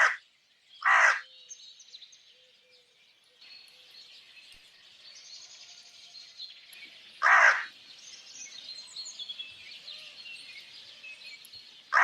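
Crow cawing: single caws spaced out, one at the start, another about a second in, one a little past seven seconds and one at the end. Faint chirping of small birds runs behind.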